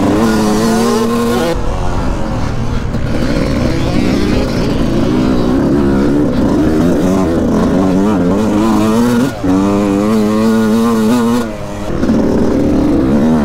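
Motocross bike engine heard from on board while riding, revving hard with its pitch climbing and dropping again and again as the throttle is worked and the gears change, the throttle briefly shut off about nine seconds in and again near the end, over a low rumble of wind and rough ground.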